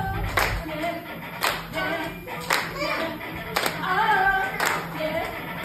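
Music: singing voices over an even clap on the beat, about one clap a second.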